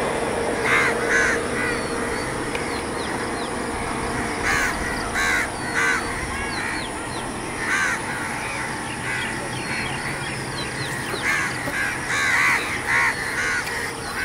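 Crows cawing in short clusters of repeated calls, about a second in, again around four to six seconds and eight seconds, and in a busier run near the end, with thin higher bird chirps over a steady outdoor background.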